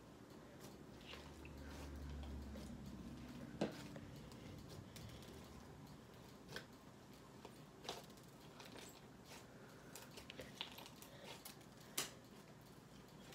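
Jelly cube slime being squeezed and poked by hand: faint wet squishing with scattered sharp clicks and pops, the loudest pops about three and a half seconds in, around eight seconds in and near the end.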